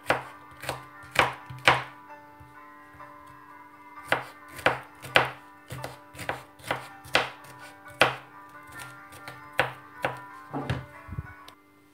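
Kitchen knife dicing raw fennel on a wooden cutting board: a string of sharp chopping knocks, about two a second, with a pause of a couple of seconds after the first few strokes.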